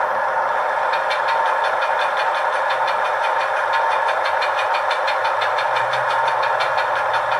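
A DCC sound decoder in an HO-scale GE ET44AC model locomotive plays the prime mover idling through its small onboard speaker. From about a second in, a fast, even ratcheting tick comes in over it: the decoder's electric handbrake sound effect.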